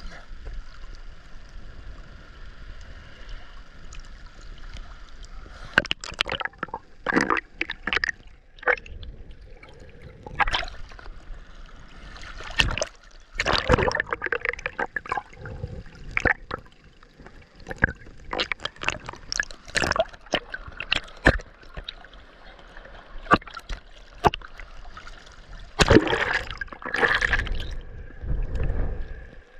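Sea water splashing and sloshing in irregular bursts, some loud, some brief.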